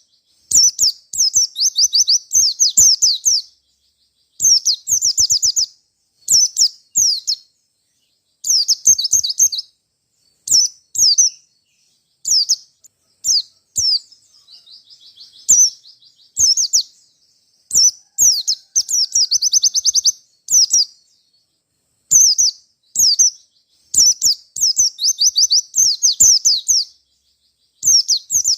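White-eye (pleci) in full song: loud, high-pitched phrases of rapid trills and chirps, each a second or two long, with short pauses between them. About halfway through there is a softer, quieter twittering.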